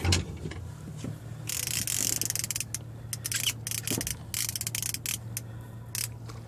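Fishing reel's drag ratcheting in fast clicking runs as a hooked striped bass pulls line off. It comes in several spurts of a second or so, over a steady low hum.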